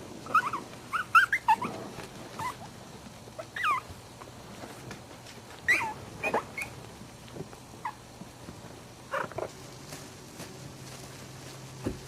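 Young puppies, about three weeks old, squeaking and whimpering in short, high, wavering cries, several in quick succession early on and then more scattered ones. A faint steady hum runs underneath.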